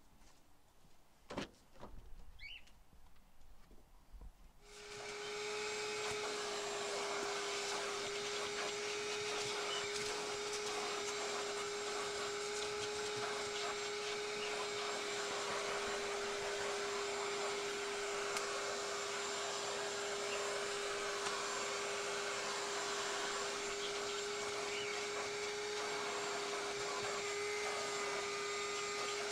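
A vacuum cleaner switches on about four and a half seconds in and then runs steadily, with a strong even whine over its rushing noise. Before it starts there is a sharp knock just over a second in.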